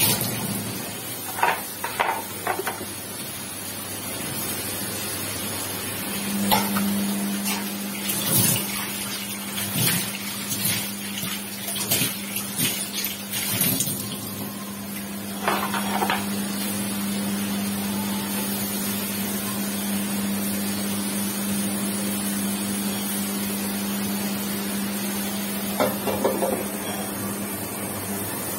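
Marinated chicken pieces sizzling in oil in a frying pan over a low gas flame, with scattered light knocks. A steady low hum comes in about six seconds in and holds, and near the end there are a few clinks as the pan's glass lid is handled.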